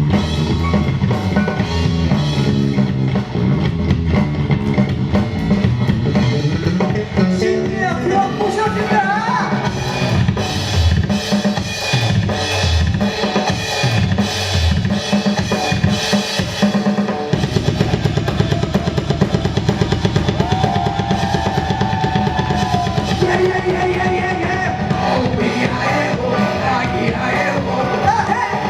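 Live rock band playing an instrumental stretch of a rock-and-roll number: drum kit and bass driving a steady beat, with a lead line sliding in pitch. The beat turns denser and faster a little past halfway.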